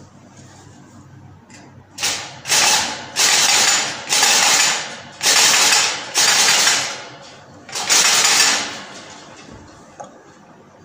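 African grey parrot giving a run of about seven harsh, raspy growls of roughly half a second to a second each, an angry display.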